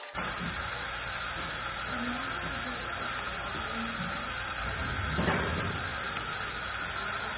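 Steady hiss of dental suction drawing air and saliva through the tubing of a cheek-retractor dry-field system, with one short, louder noise about five seconds in.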